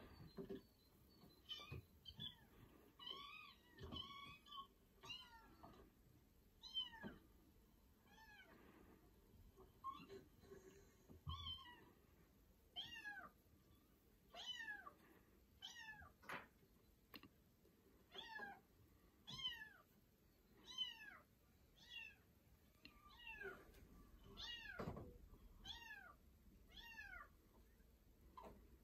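Kittens mewing over and over: short, high-pitched mews, each falling in pitch, about one a second.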